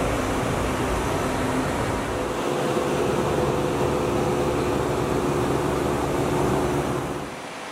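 Machine-shop room tone: a steady rush of moving air with a low droning hum and a few faint steady tones. The low hum changes about two and a half seconds in, and the whole sound drops in level near the end.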